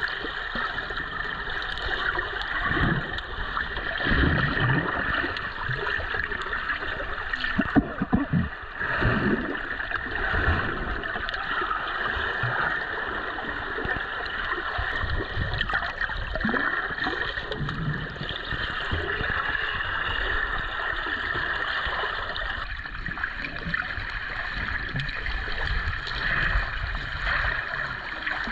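Water sloshing and gurgling around a GoPro in its waterproof housing, which muffles it, with low knocks throughout and the loudest splashes about eight seconds in.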